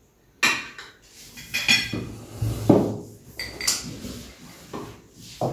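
Metal spoons and forks clinking and scraping against plates and a serving pot while rice is dished out. The sound comes as a string of separate sharp clinks, with a duller knock, the loudest, a little before the middle.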